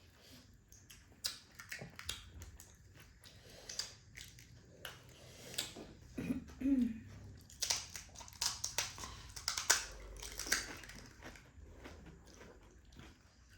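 Close-up chewing and crunching of pani puri, the crisp hollow puri shells cracking between the teeth in irregular crunches.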